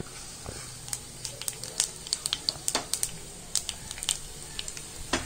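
Fennel seeds frying in hot oil: scattered, irregular sharp crackles and pops over a low hiss as the seeds start to brown.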